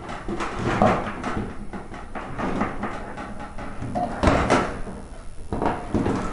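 Handling noise of wires being freed from a plastic tanning-bed lamp holder on a sheet-metal deck: rustling wire and scattered small clicks and knocks as a straightened paper clip releases each wire from its push-in socket, with louder knocks about a second in and about four seconds in.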